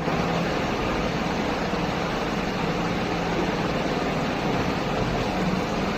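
Steady background noise, an even hiss with a faint low hum, unchanging throughout.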